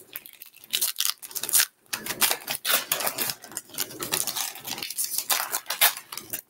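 Foil Pokémon card booster pack being torn open and crinkled by hand: a dense, irregular run of sharp crackles and rustles.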